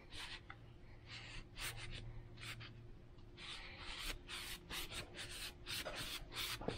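A cloth towel rubbed along a wooden hammer handle, wiping off excess tung oil finish: a run of faint, irregular brushing strokes.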